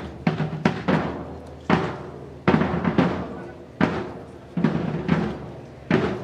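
Drums beating loud strikes, singly and in quick pairs, about one a second, each ringing out before the next.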